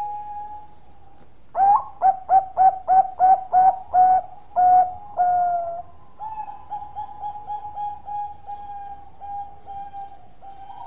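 Zebra dove (perkutut) cooing: a run of about ten loud, short staccato coos, about three a second, ending in a longer drawn-out note, then a quieter run of coos.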